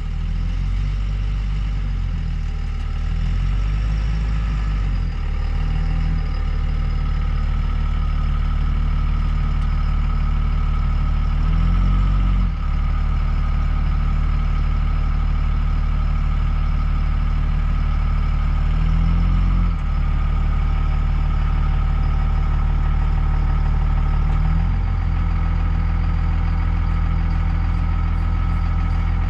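Heavy engine running steadily at low speed, its pitch briefly rising and falling twice in the middle, with small shifts in engine speed near the start and near the end.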